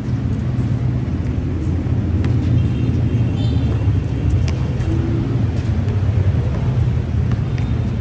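Steady low rumble of outdoor background noise, with a few faint sharp knocks.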